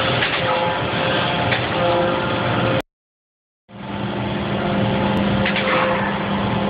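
Mattison horizontal surface grinder running under power, a steady mechanical hum with a few held tones over a hiss. The sound cuts out completely for nearly a second about three seconds in, then returns with a stronger low hum.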